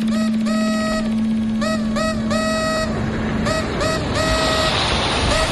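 A run of short and long beeps at one high pitch, each sliding up slightly as it starts, over a steady low hum that stops about three and a half seconds in.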